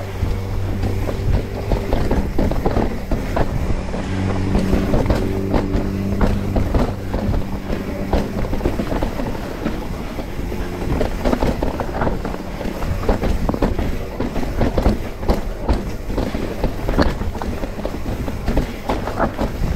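Mountain bike clattering and rattling over a rough, rocky trail, with many irregular knocks and a steady low buzz that comes and goes.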